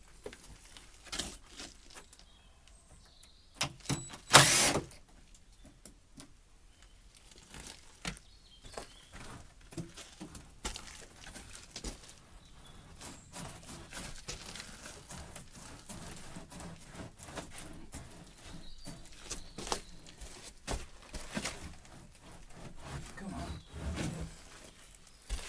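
Knocks, clatter and scraping of timber being worked loose as a wooden arch former is taken apart from under a stone arch, with one loud crash about four seconds in.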